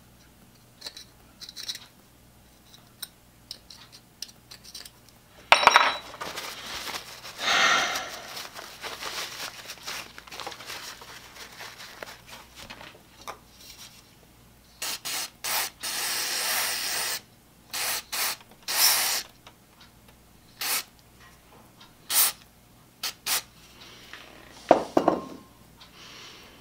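Aerosol electronic-cleaner spray squirted through a straw into a small drill chuck: a long hiss of about four seconds past the middle, then several short squirts. Before that come light clicks and scraping as small metal chuck parts are handled, and a knock sounds near the end.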